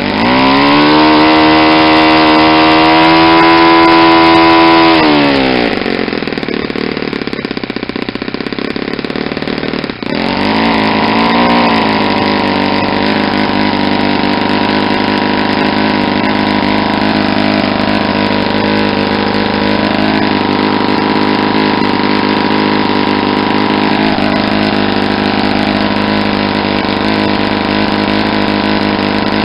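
Saito 50 single-cylinder four-stroke glow engine turning a propeller on a test stand: it revs up sharply, holds high speed for about four seconds, drops back, then runs steadily at a mid speed. Its mixture has been leaned out close to peak.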